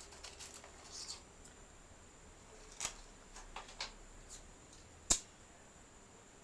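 Faint scattered clicks and ticks over a low steady hiss, with one sharper, louder click about five seconds in.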